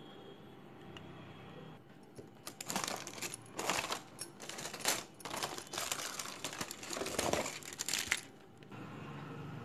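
Aluminium foil crinkling and crackling as it is pulled off a pan of dum-cooked biryani, starting about two and a half seconds in and stopping a little over a second before the end.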